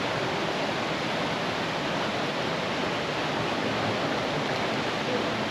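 Waterfall pouring into a pool, a steady even rush of falling water.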